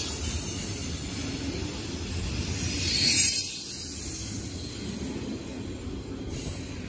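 Double-stack intermodal freight train's well cars rolling past: a steady rumble of steel wheels on the rails, swelling briefly about three seconds in.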